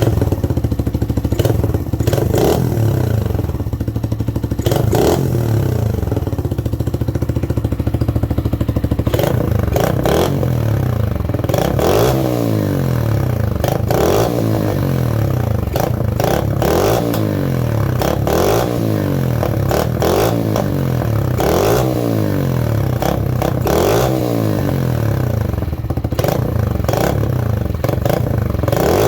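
Mash Cafe Racer 125cc's single-cylinder engine running through an aftermarket Megaton exhaust with an adjustable dB killer. It idles with a couple of short throttle blips, then is revved over and over from about a third of the way in, the revs rising and falling about every two seconds.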